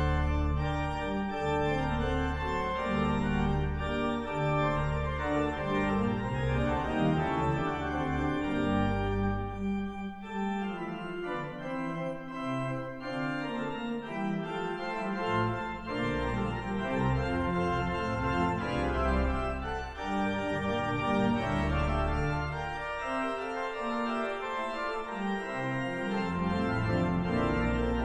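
Pipe organ of a concert hall, the C.B. Fisk organ 'Lucy', playing a classical piece. Full chords move over long, held low pedal notes.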